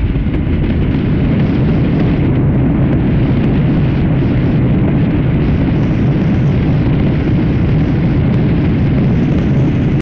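Jet airliner's engines and wheels making a loud, steady rumble during the roll along the runway, heard from inside the cabin.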